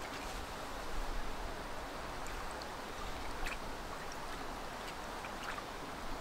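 Shallow stream flowing over stones, a steady babbling rush, with a few small splashes as a hand dips into the water.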